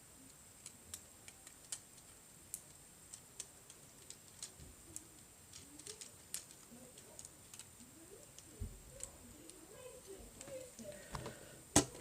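Plastic LEGO parts of a General Grievous wheel bike clicking and rattling as its legs are folded by hand: irregular light clicks throughout, with a louder snap near the end.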